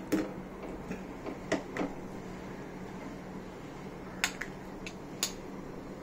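Steel ladle clinking against a stainless steel pot while kadhi is stirred and ladled out: several short, sharp metal knocks spread over a few seconds, with a steady low hum underneath.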